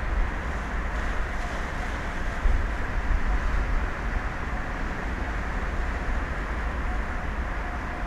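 Wind buffeting an outdoor microphone: an unsteady low rumble over a steady hiss of wind and sea, with no distinct events.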